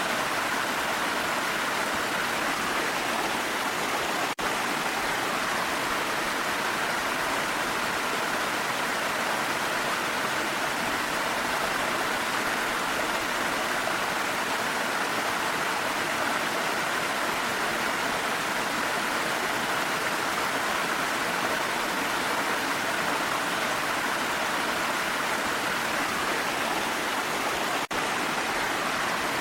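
Waterfall and mountain rain: a steady, even rush of falling water with no breaks, apart from two very brief dips in level, about four seconds in and near the end.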